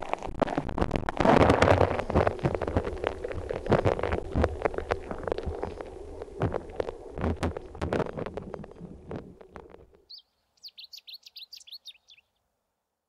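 River current rushing and gurgling past a submerged camera, with many sharp clicks and knocks against the housing. It cuts off suddenly about ten seconds in, and a short run of high chirps follows.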